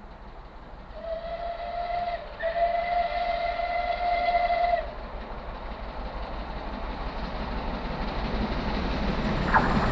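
Steam whistle of the Southern Railway Merchant Navy class Pacific 35028 Clan Line: one short blast of about a second, then a longer blast of about two seconds. After that comes the steadily louder approach of the locomotive and its train running at speed.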